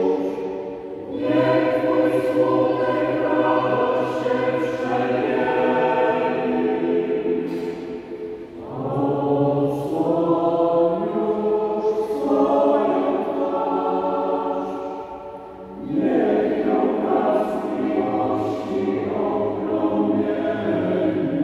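Church choir singing a Polish Marian hymn, with men's voices carrying the low part. The hymn comes in sung phrases with short breaks between them, about one, eight and a half and sixteen seconds in.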